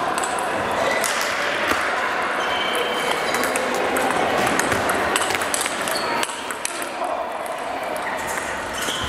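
Table tennis rally: rapid clicks of the ball off the rackets and the table, thinning out after about six seconds, with chatter in the hall behind.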